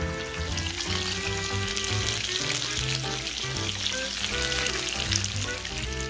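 Sausages sizzling in an electric waffle maker: a steady frying hiss, with background music underneath.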